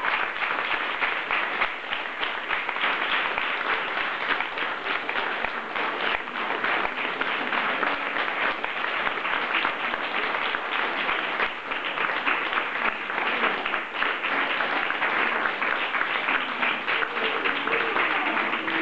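Audience applauding: a dense, steady clatter of many hands clapping that carries on without a break.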